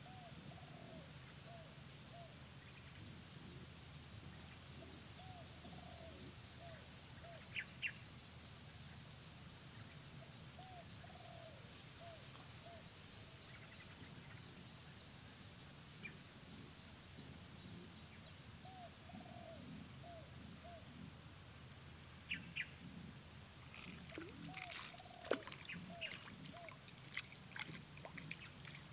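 A hooked climbing perch splashing and thrashing at the surface of a swamp pool, a cluster of sharp splashes in the last few seconds. Before that, a bird calls in short runs of notes over a steady high whine.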